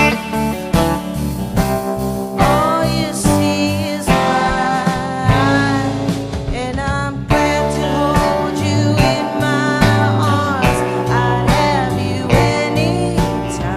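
A live rock band playing a slow song. An electric lead guitar plays a melody full of sliding, bending notes over bass and drums.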